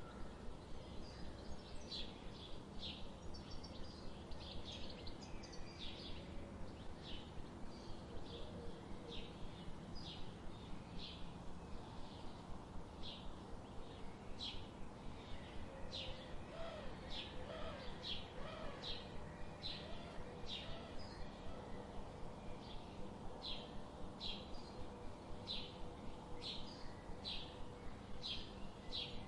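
Small bird chirping: short high chirps repeated steadily, about one to two a second, over a steady low background hiss.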